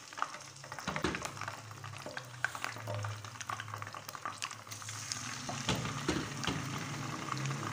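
Marinated chicken pieces sizzling and crackling in hot oil in a wok as more raw pieces are dropped in, with scattered sharp pops over a steady low hum.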